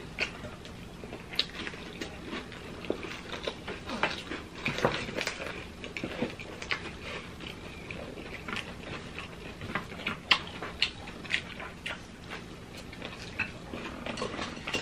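Close-miked eating: chewing and crunching of breaded fried pork cutlet and lettuce salad, a steady run of small irregular crackles, with the odd click of utensils.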